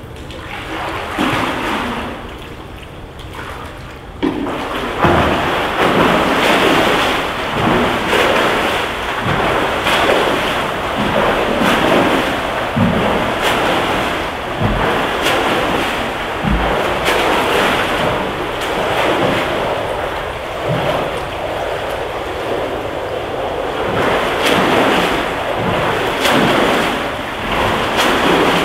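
A swimmer's strokes and kicks splashing in an indoor pool. The sound starts abruptly about four seconds in, then swells and fades about once a second with each stroke.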